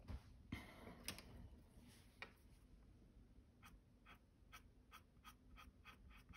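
Faint colored-pencil strokes on mixed media paper: a few scattered scratches, then a run of light, even strokes, about three a second, in the second half.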